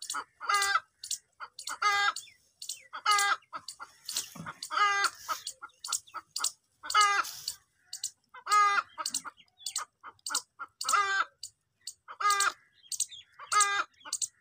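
Hen clucking: a steady run of similar calls, repeated about every second and a half.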